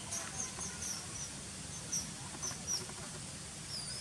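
Small bird chirping in short, high notes, several a second, over a steady outdoor background.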